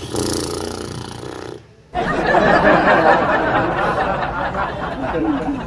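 Loud, exaggerated snoring by a man, put on as a prank: a shorter snore, then after a brief pause a long, noisy snore.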